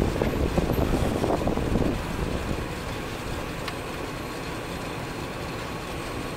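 Freight train tank cars rolling over the rails, a steady low rumble that drops off about two seconds in as the end of the train moves away.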